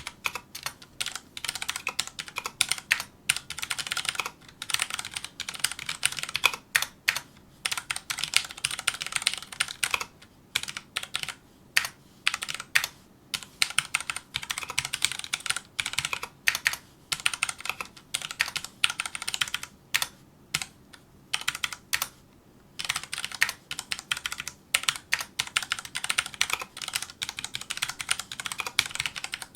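Fast, continuous typing on a Filco Majestouch2 mechanical keyboard with Cherry MX Brown switches: a dense run of key clicks and bottoming-out clacks, broken by a few brief pauses.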